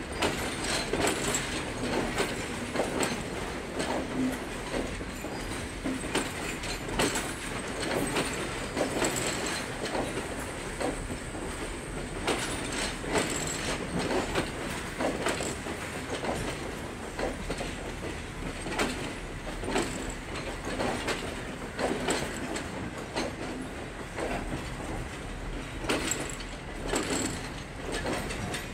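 Passenger coaches rolling slowly past, their steel wheels clacking over rail joints and points in irregular strings of clicks.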